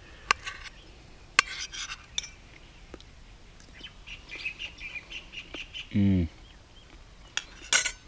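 Metal spoon clinking against a stainless steel camp bowl a few times as cooked chayote is scooped out, with birds chirping in the background around the middle. About six seconds in comes a short falling "mm" from a person tasting the food, then a brief scrape near the end.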